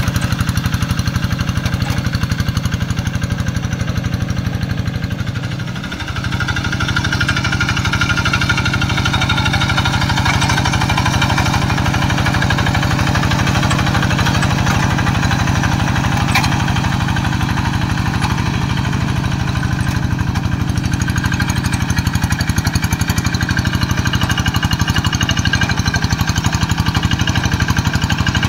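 Quick G1000 two-wheel hand tractor's single-cylinder diesel engine running steadily with a rapid, even firing beat while pulling a plough through paddy mud. The level dips briefly about six seconds in.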